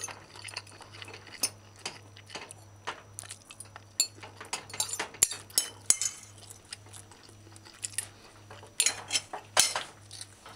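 Metal fork clinking and scraping against a ceramic plate while eating, in scattered short taps and scrapes, with a cluster of louder clinks about nine seconds in. A faint low hum runs underneath.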